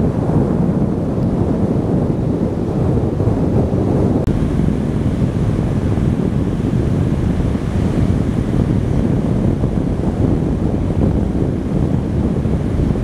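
Sea surf breaking steadily on a sandy beach, with wind buffeting the microphone as a continuous low rumble under the wash of the waves.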